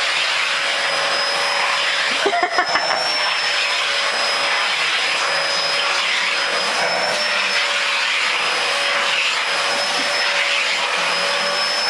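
Vacuum cleaner running steadily with a constant whine while its hose nozzle is run over a cat's fur. A short run of knocks comes about two and a half seconds in.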